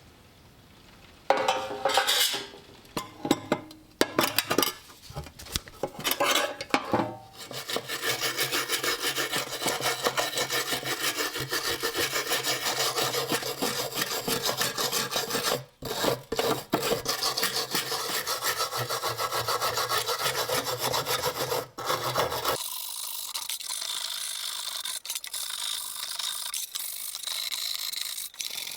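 Rusty steel knife being scraped and rubbed by hand with an abrasive tool to take off rust: a few separate strokes at first, then fast continuous rubbing from about seven seconds in, which turns thinner and hissier near the end.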